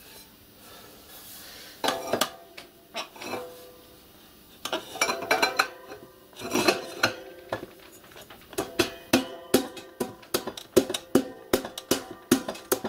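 Ringing metal clinks and knocks as a riveted steel smokebox shell is worked onto the copper boiler barrel of a miniature steam locomotive, metal on metal. A few separate knocks at first, then a quick run of sharp knocks in the second half as it is pushed home.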